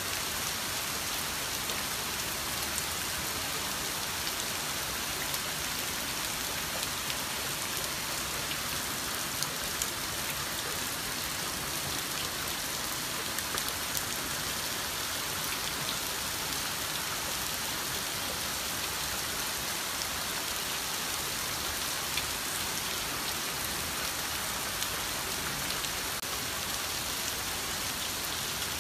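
Typhoon rain falling steadily: a dense, even hiss with scattered sharper ticks of drops striking nearby surfaces.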